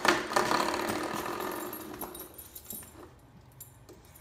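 Coiled spring doorstop flicked by a dog and twanging with a rapid buzzing vibration. The buzz starts sharply and dies away over about three seconds.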